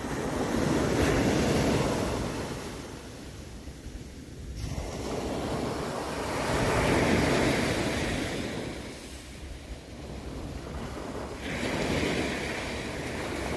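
Ocean surf breaking on a sandy beach: waves swelling and washing in, then drawing back, three times about five seconds apart.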